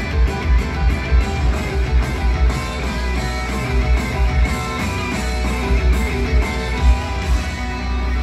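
A live rock band plays loud through an arena sound system: drums keep a steady beat under electric guitar.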